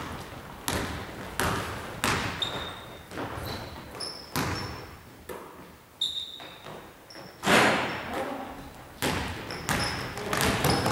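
Basketball bouncing on a hardwood gym floor in a reverberant hall, irregular thuds as it is dribbled and passed, with short high squeaks of sneakers on the court. A louder impact comes about two-thirds of the way through.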